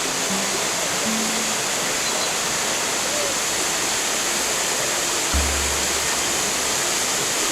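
Waterfall rushing steadily, a full, unbroken roar of falling water. A few soft, low held music notes sound over it, the deepest one about five seconds in.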